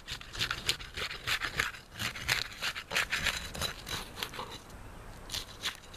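Steel flat bar scraping and prying under brittle asphalt shingle tabs to work the roofing nails loose, with quick crackling, scratching strokes. They ease off a little past the middle and pick up again near the end.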